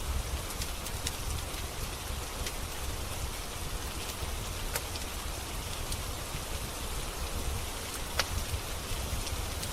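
Steady rain falling, a dense even hiss with a low rumble underneath, mixed with the scattered sharp pops and crackles of a wood fire in a fireplace; one sharper pop comes about eight seconds in.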